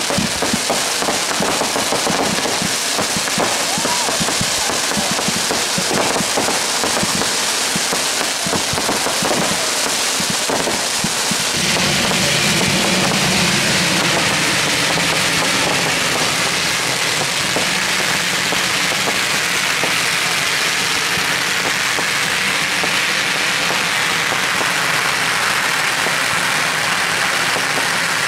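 Fireworks going off: rapid crackling and popping of aerial bursts for roughly the first twelve seconds. After that the sound turns into a steady, dense hissing rush.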